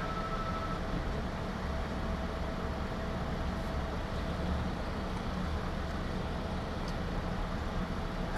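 Steady low rumble of an idling vehicle engine, with a faint steady whine over it; a second, higher whine cuts off under a second in.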